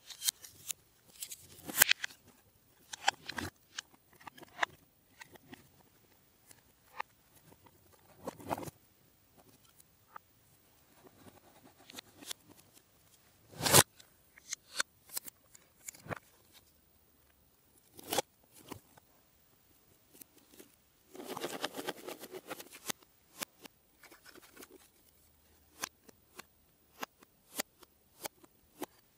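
Hands handling biscuit packaging: a paper cup of stacked Nutella Biscuits and a cardboard tube, in scattered light clicks, taps and knocks. A sharp knock comes about halfway through, and a couple of seconds of denser crinkling come later on.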